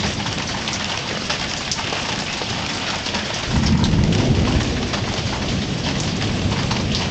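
Light, steady rain falling, with small drop ticks. About halfway through, a low rumble of thunder comes in and keeps rolling.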